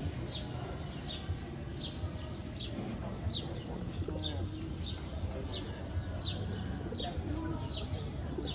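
A bird repeating a short, high, falling chirp about every three-quarters of a second, over a steady low rumble.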